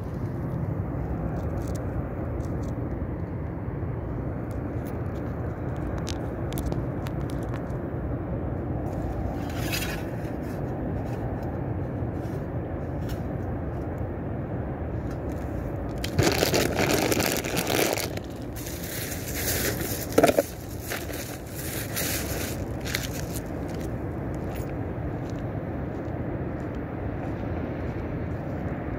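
Steady low rumble of city road traffic, with scattered faint clicks and a louder rush of noise for several seconds a little past halfway.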